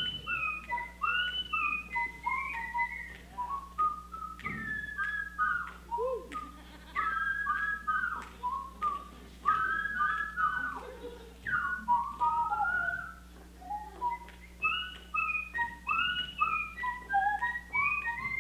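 Two performers whistling through their lips into microphones: a quick run of short whistled notes that swoop up and down, at times overlapping.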